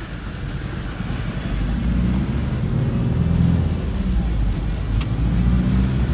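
A car driving on a wet road, heard from inside the cabin: a steady low engine and road rumble that grows louder about two seconds in as the car picks up speed. A single sharp click comes about five seconds in.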